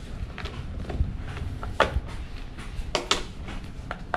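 Handling noise of a coiled rubber hose and a plastic pressure-washer spray gun being moved and set down on a wooden tabletop, with a few light knocks about one, two and three seconds in.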